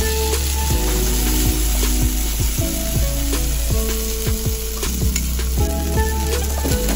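Mushroom pieces frying in a stainless steel pan: a steady sizzle with frequent small pops and spits.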